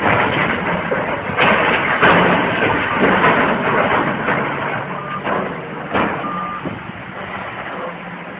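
Heavy machinery working: a loud, rough rumble and clatter with several sharp knocks, and two short high beeps a little past the middle.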